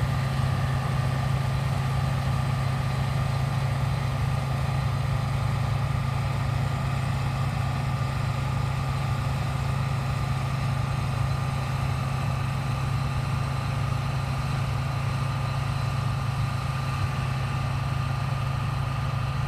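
John Deere 630 running steadily while harvesting wheat: a constant low engine hum with a few steady higher machinery whines over it, unchanging throughout.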